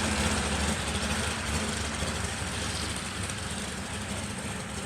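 Two drag cars, a first-generation Ford Mustang and a 1956 Plymouth, running down the strip. Their engines are a steady rumble that fades as they pull away.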